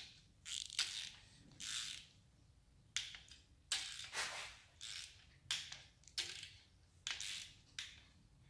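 Torque wrench ratcheting in short strokes, about ten separate bursts with pauses between them, as bolts on an engine block are run down to a first stage of 18 ft-lb.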